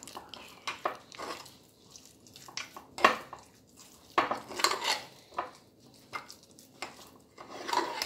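A metal spoon stirring thick chocolate brownie batter in a ceramic mug, with irregular clinks and scrapes against the mug's sides and bottom. The sharpest clink comes about three seconds in.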